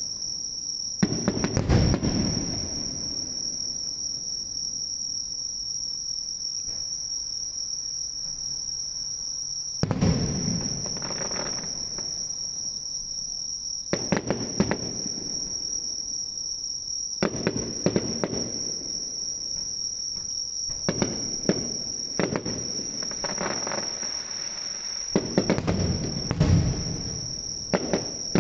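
Fireworks going off in separate bursts with booms and crackling tails, coming closer together near the end, over the steady high-pitched chirring of insects.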